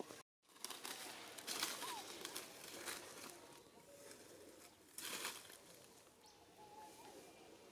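Dry leaf litter rustling in short bursts as a baby monkey moves over it, with a few faint chirps.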